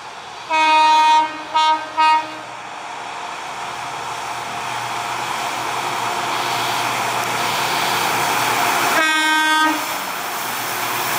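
WDP4D diesel-electric locomotive sounding its horn: one long blast, then two short ones. Its engine and the train's running noise then grow steadily louder as it approaches, working up the Bhor Ghat gradient, with another horn blast near the end.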